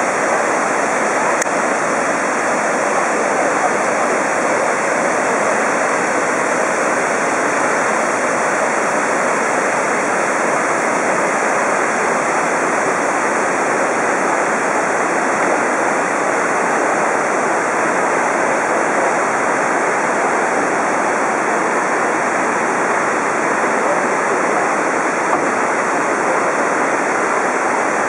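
Kegon Falls rushing with a steady, unbroken roar of falling and churning water, at a flow of about 1.5 tonnes a second.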